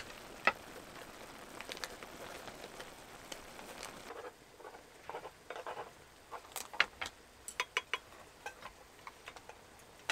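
Ramen cooking at a camp stove: a steady hiss for about the first four seconds, which then cuts off, followed by scattered light clicks and taps.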